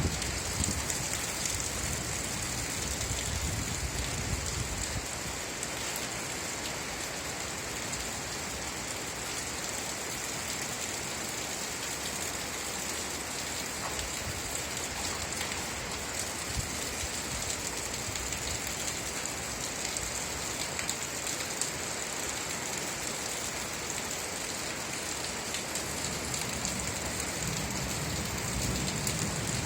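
Steady rain falling, an even hiss with a bright high edge. A low rumble swells briefly at the start and again near the end.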